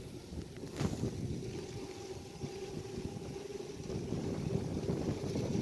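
Wind buffeting the microphone in rough gusts, with a faint steady hum underneath.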